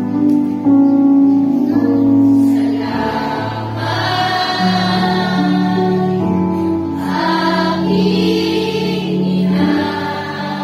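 A choir of children and teenagers singing a slow song in long held notes, with musical accompaniment underneath.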